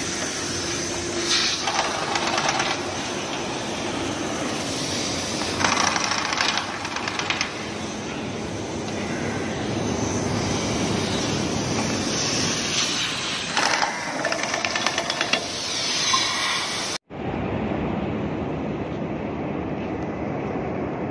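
Pneumatic impact wrench hammering in about four short bursts on the nuts of a steel flange, over a loud, steady machinery noise. Near the end the sound cuts sharply to a duller steady noise.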